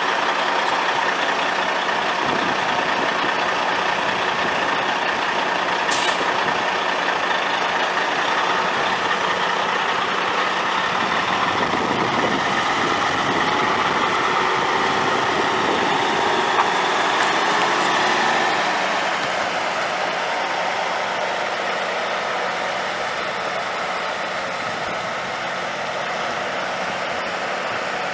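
Semi truck's Caterpillar C15 twin-turbo inline-six diesel running steadily, with a sharp click about six seconds in; the sound gets a little quieter about two-thirds of the way through.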